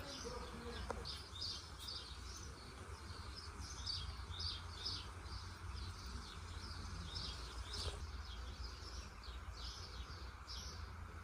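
Small birds chirping, many short calls repeated throughout over a low steady rumble of outdoor background noise.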